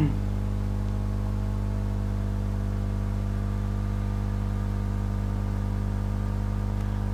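Steady electrical mains hum with a buzzy set of overtones, unchanging throughout.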